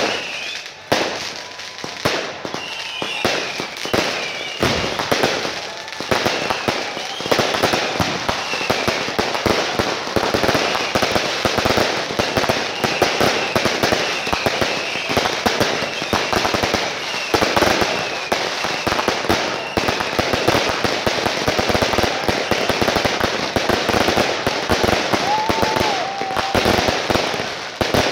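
Fireworks going off in a dense, continuous run of rapid bangs and crackles, with high whistling glides over it for much of the time.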